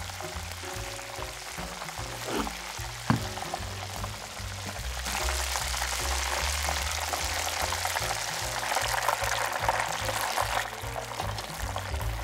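Battered zucchini rolls deep-frying in hot oil: a dense, crackling sizzle, strongest from about five seconds in until shortly before the end. Background music with a bass line plays throughout, and two sharp clicks come in the first few seconds.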